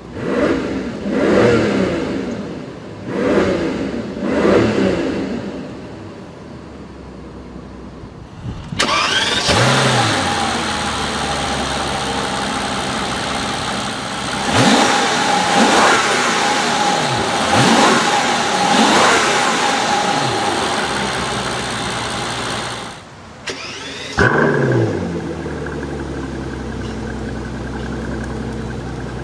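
Mercedes-Benz S65 AMG's twin-turbo V12 being revved and started. It gives three quick revs at first. About nine seconds in it fires up with a rising flare and is revved four times. Near the end it starts again, and the flare drops away to a steady idle.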